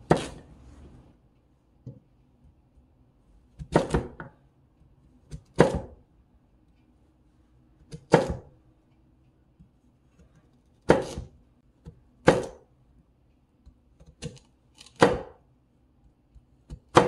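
Chef's knife slicing a raw peeled sweet potato into rounds on a plastic cutting board: about nine separate cuts, each short and sharp, one every second or two.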